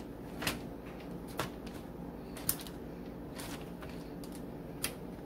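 Light clicks and taps, about five of them spread apart, as lemon slices are picked up off a plastic cutting board and put into a plastic bag.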